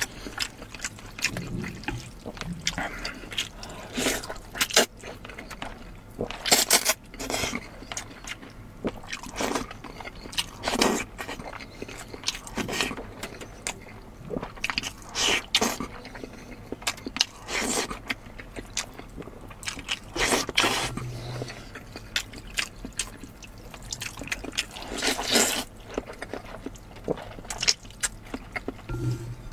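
Close-miked eating: wet chewing and mouth smacking, with a run of short, sharp clicks and a few louder bursts of noisy slurping or crunching.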